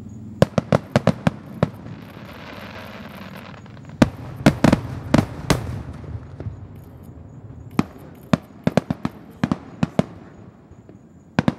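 Aerial fireworks shells bursting: rapid volleys of sharp bangs, one shortly after the start, another about four seconds in, a third about eight seconds in, and a fresh volley right at the end.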